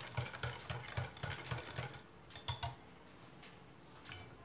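Wire whisk beating egg yolks with sugar and cornstarch for pastry cream in a glass bowl, the strokes coming about three to four a second and tapping against the glass. The whisking stops about two seconds in, and a couple of light clicks follow.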